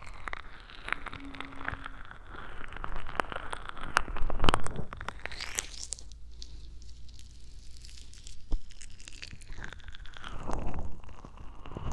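Close-up ear-cleaning ASMR sounds: a cotton swab, then fingers and a soft material, scraping and rubbing at the ears of a binaural ear-shaped microphone. It makes a crackly rustling full of small clicks, loudest about four seconds in.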